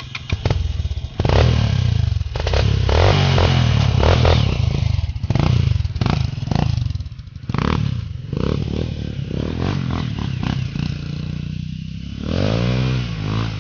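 Dirt bike engine revving hard in repeated surges as the bike pulls away on the trail, then running steadier, with one rev that rises and falls near the end.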